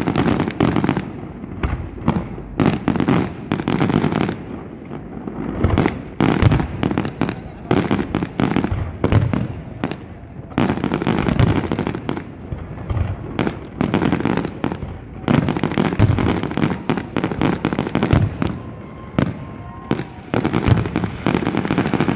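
Fireworks display: shells bursting in a rapid, continuous run of bangs and crackles, several coming close together in clusters every second or two.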